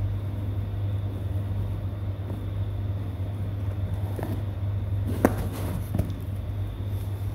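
A steady low hum, with a few short sharp scratches or taps on cardboard about five and six seconds in.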